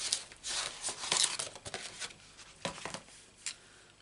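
Paper card stock being handled and slid across a craft mat: a series of short papery rustles and scrapes, loudest about a second in.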